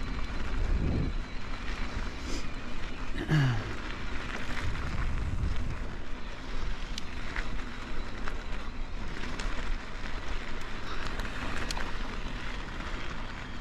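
Mountain e-bike's knobby tyres rolling over a gravel and dirt track, a steady rumble with wind on the microphone and small stones clicking now and then. A short falling vocal sound about three seconds in.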